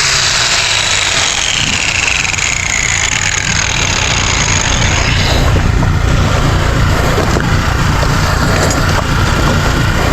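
A power tool's whine over the steady low running of a generator engine, with dense grinding noise, as the boat's fiberglass is sanded. The whine falls in pitch over the first few seconds as the tool spins down, and rises quickly again at the very end as it spins up.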